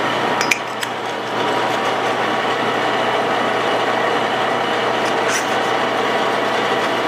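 Metal lathe running steadily, turning a hole saw that cuts a cope into steel tubing on power feed. A few metal clinks from hole saws being handled, about half a second in and again about five seconds in.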